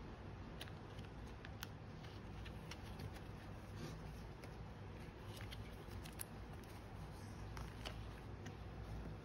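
Photocards being slid into clear plastic binder sleeves: scattered small plastic crinkles, clicks and card taps over a steady soft hiss.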